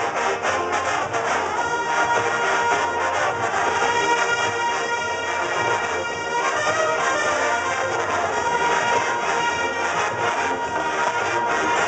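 Marching band playing, its brass section (trumpets, trombones) carrying the tune with percussion beneath. Early on there are quick percussive strokes; from about a second and a half in, the band holds long sustained chords.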